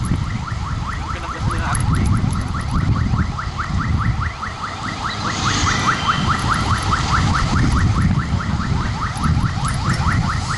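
Wind rumbling on the microphone of a moving vehicle, with a fast repeating electronic-sounding chirp, about five a second, running over it from about a second in.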